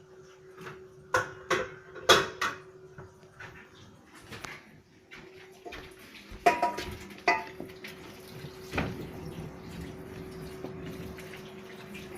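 Irregular sharp clicks and knocks, like small hard objects being handled, loudest in two clusters near the start and the middle, over a faint steady hum.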